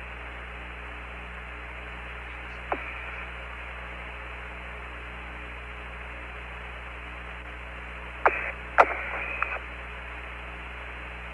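Open Apollo 15 air-to-ground radio loop with nobody talking: a steady band-limited radio hiss over a low hum. A sharp click comes about three seconds in, and a few short clicks and blips come near the end.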